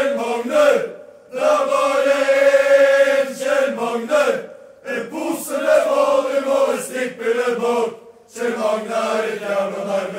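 Football supporters' chant sung in unison by a group of voices. The phrases break off briefly about every three seconds.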